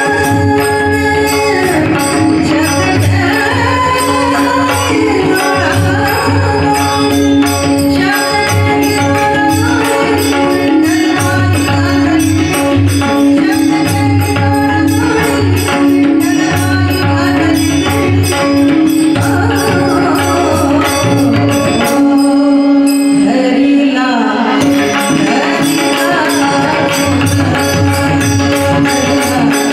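Marathi devotional abhang (bhajan) music: a woman singing a flowing melody over a steady drone, with small hand cymbals (taal) keeping a quick even rhythm and a low drum beating along; the drum drops out briefly a little after the middle.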